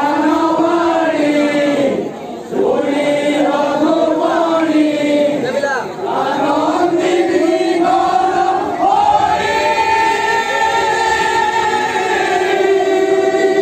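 A group of men singing an Odia devotional kirtan together, holding long drawn-out notes. They break off briefly about two seconds in and again about six seconds in.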